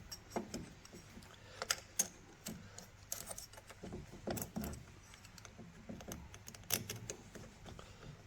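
Small metal clicks and clinks of bolts, washers and nuts being handled and fitted by hand, with a few sharper taps about two seconds in and again near seven seconds.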